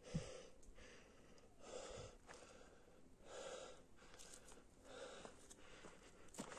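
A hiker breathing heavily while walking, slow breaths about every one and a half seconds, with soft footsteps on a leaf-covered dirt trail.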